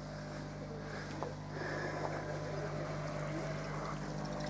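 Steady low electric hum of the koi pond's pump and filter equipment, with water running through the filter growing louder about a second and a half in.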